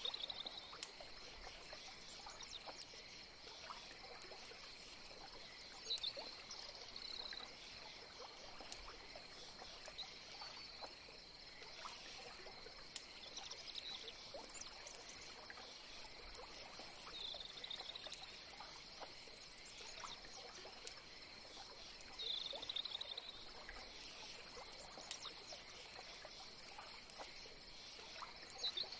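Faint steady high-pitched chirring like an insect chorus, with scattered soft ticks and clicks, and a thin high steady tone that comes in twice for several seconds.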